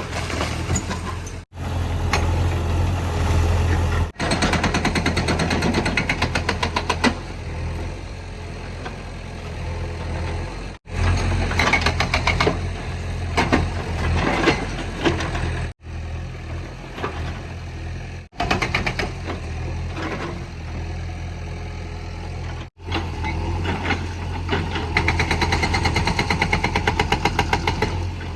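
JCB 3DX backhoe loader's diesel engine running under load while it works, with rapid regular pulsing in places, broken by several abrupt cuts in the sound.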